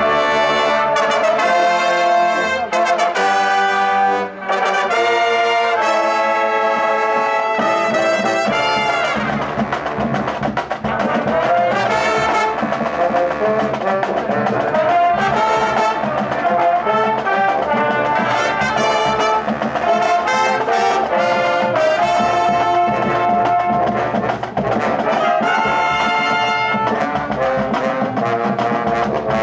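Marching band playing a tune, led by its brass: trumpets, horns and sousaphone in held and moving chords, with drums underneath.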